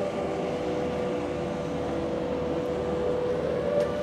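Background music: slow ambient synth chords with a long held tone and gently shifting lower notes.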